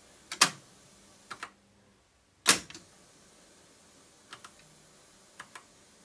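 Mechanical clicks of an Akai GX-636D reel-to-reel deck's push-button and switch controls being operated to run the test in the other tape direction: a loud click about half a second in, a louder one about two and a half seconds in, and a few fainter clicks between and after.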